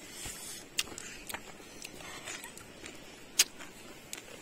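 Scattered light clicks and taps of handling noise as people pick food off a banana leaf by hand, with one sharper click about three and a half seconds in.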